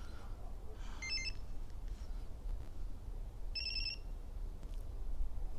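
Two short, high electronic warbling beeps from a car alarm's remote-start key fob as its button is pressed, one about a second in and one about three and a half seconds in. The remote start is failing to start the car.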